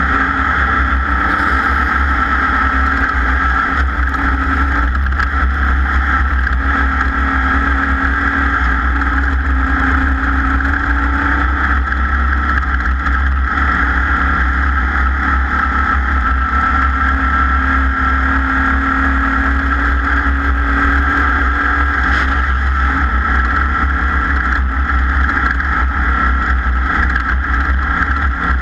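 Off-road race vehicle's engine running at speed, a loud continuous drone and rumble with no letting up.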